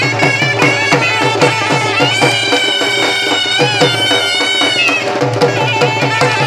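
Live folk music accompanying stick fighting: barrel drums beat a rapid, steady rhythm, and a reedy wind instrument holds a wavering melody for a few seconds in the middle.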